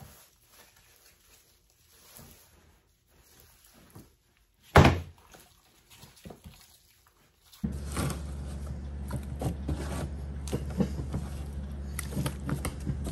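Gloved hands seasoning and mixing chunks of raw pork in a plastic tub: faint taps and rustles, one loud sharp thump a little under five seconds in, then from about eight seconds a steady low hum under irregular small clicks as the meat is worked by hand.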